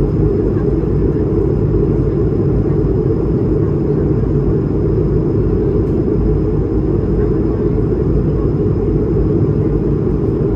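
Steady cabin noise inside an Airbus A220-300 with its Pratt & Whitney PW1500G geared turbofans running: an even, loud rumble of engine and airflow, with a faint high whine held throughout.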